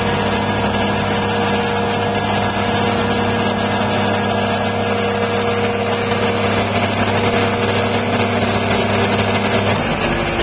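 A heavy machine's engine running steadily at a constant speed, a loud, even hum that barely varies; its tone shifts slightly just before the end.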